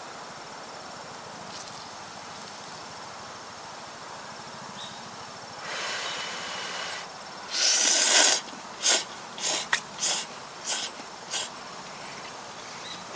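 A person slurping instant ramen noodles: a longer slurp about halfway through, a loud one just after, then about six short slurps and sips.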